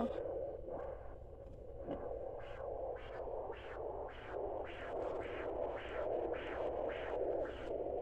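Handheld fetal Doppler picking up a fetal heartbeat: a fast, regular whooshing pulse of about two and a half to three beats a second over a steady hiss, coming through more clearly after about two seconds.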